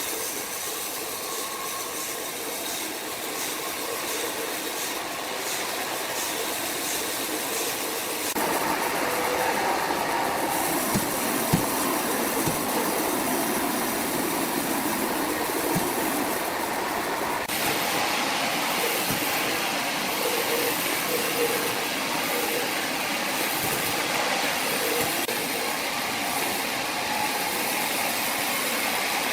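Sawmill saw cutting a large log: a steady mechanical run that grows louder about eight seconds in and turns harsher about halfway, with a few brief knocks.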